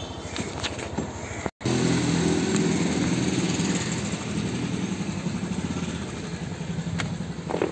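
An engine running steadily, its pitch holding level; the sound drops out for a moment about one and a half seconds in and comes back louder.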